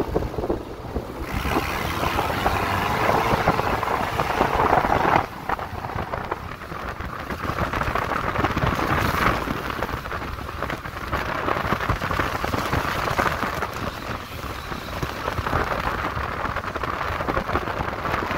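1993 Toyota pickup driving fast across a harvested corn field: a dense, crackling rush of tyre, wind and corn-stubble noise against the truck, easing a little about five seconds in.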